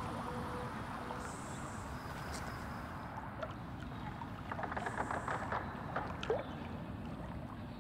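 Reservoir water lapping gently at the shore and against a small moored boat, with a cluster of small splashes and ticks around the middle.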